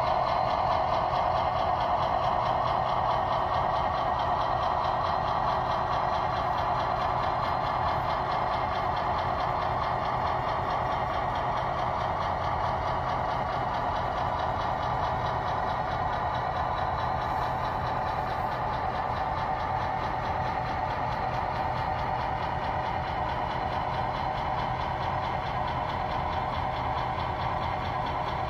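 Model railroad diesel locomotive's engine sound, running steadily with a constant low hum and slowly fading as the locomotive pulls away.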